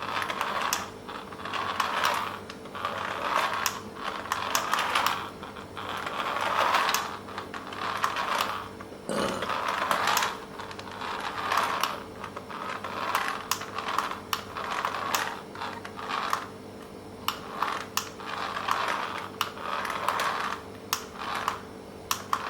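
Toy RC car's small electric motor and plastic gearbox whirring in short repeated bursts of about a second each, mixed with sharp plastic clicks.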